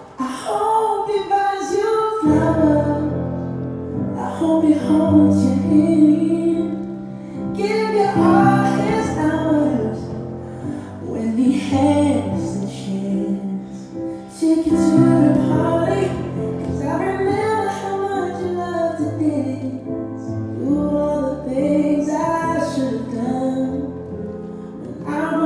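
Slow, tender song: a woman's voice singing a melody over steady held accompaniment.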